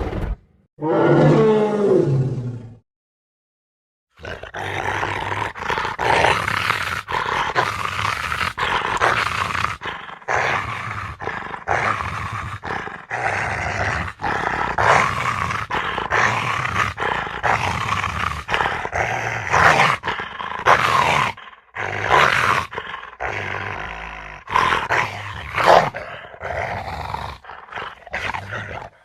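Monster sound effects: a pitched roar with a falling pitch about a second in, a short silence, then a long run of layered roars and growls.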